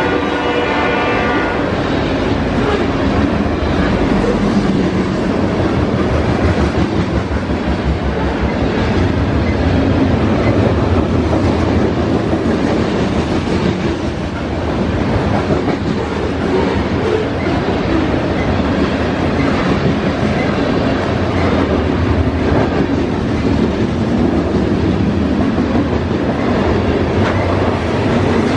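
A train rolling past close by, its wheels clacking steadily over the rails with a continuous rumble. The tail end of its horn fades out in the first second or so.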